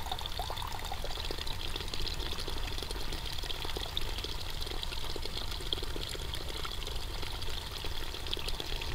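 Steady trickle of running water, even and unbroken.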